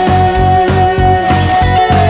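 Blues-rock song: a long held electric guitar note over a steady drum beat and low bass.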